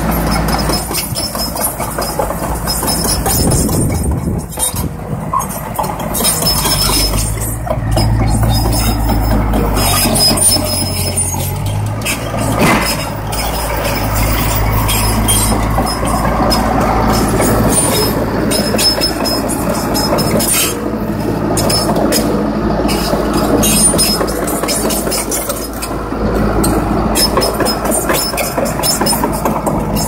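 Case 650K crawler dozer's diesel engine running while its steel tracks clank and rattle over the sprockets and rollers as it moves, with one sharper knock a little before halfway. This is a test run of the reshimmed left track, whose sprocket had been catching the inside edge of the track chain and making it skip.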